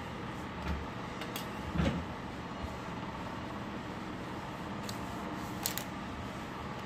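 Light knocks and clicks of small plastic items being picked up and set down on a granite countertop while it is wiped with a cloth, the heaviest knock about two seconds in, over a steady background hum.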